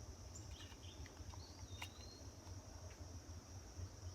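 A steady, high-pitched insect chorus, with a low rumble underneath and a faint short chirp and click near the middle.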